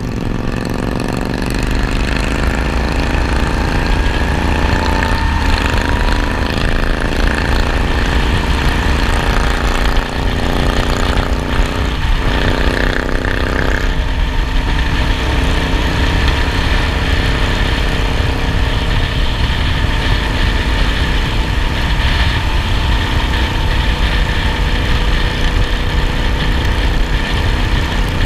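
Twin-cylinder cruiser motorcycle engine heard from the rider's seat, accelerating with rising pitch and shifting up a gear about five seconds in and again around twelve and fourteen seconds, then cruising at a steady speed. A low wind rumble on the microphone runs under the engine.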